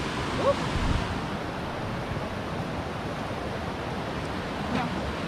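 Fast-flowing river rushing steadily, a current too strong to stand up in.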